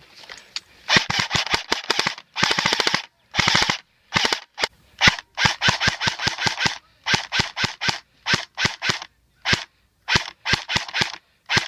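Airsoft guns firing in repeated short bursts of rapid shots, about a dozen bursts with brief pauses between them.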